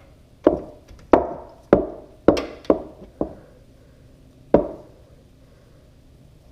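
Sharp metallic knocks with a short ring, six in quick succession about half a second apart and one more a little past the middle, from a socket and ratchet working on an oil drain bolt that has just been broken loose.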